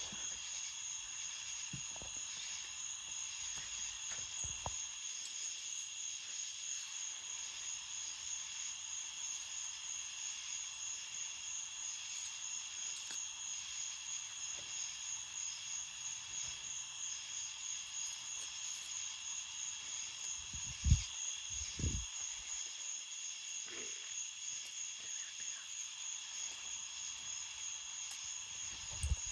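Steady chorus of insects calling, a high fast-pulsing trill, with two low thumps about a second apart about two-thirds of the way through.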